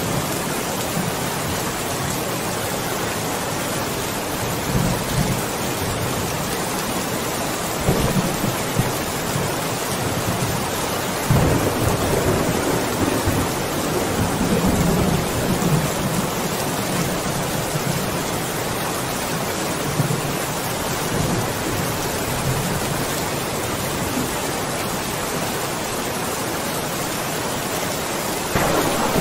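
Steady rain falling, a constant hiss, with low rumbles of thunder swelling about five and eight seconds in, a longer roll from about eleven to sixteen seconds, and another near the end.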